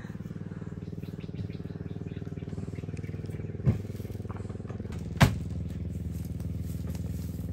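A small engine running steadily at an even pitch. Two sharp knocks come about three and a half and five seconds in as a plastic hopper tank is handled.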